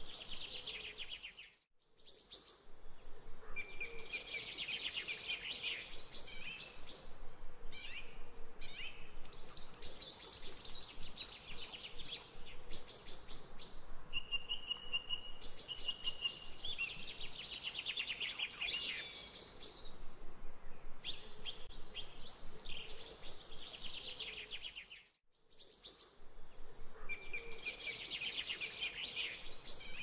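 Birdsong: several small birds chirping and trilling together in a busy chorus. It cuts out briefly twice, once near the start and once late on.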